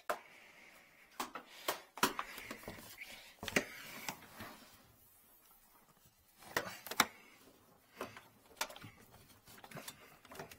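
Irregular sharp clicks and knocks from handling a drain inspection camera's push-cable, reel and case, with quieter handling noise between them.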